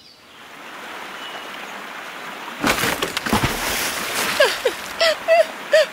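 A rushing, water-like noise that swells up, grows louder about halfway through with a few sharp knocks, then carries on under several short calls that slide in pitch near the end.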